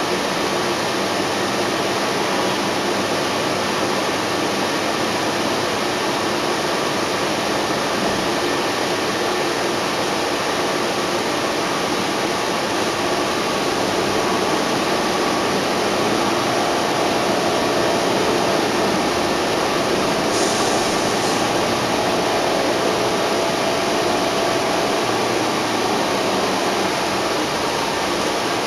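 Steady cabin noise inside a 2010 NABI 31-LFW transit bus, from its Cummins L Gas natural-gas engine and ZF automatic transmission. A higher tone joins a little past halfway as the sound grows slightly louder, and there is a short hiss about two-thirds of the way through.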